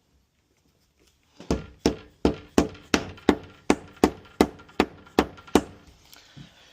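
Wood chisel struck about a dozen times in quick, even succession, roughly three blows a second, as it is driven in to cut a lock mortise in a wooden door.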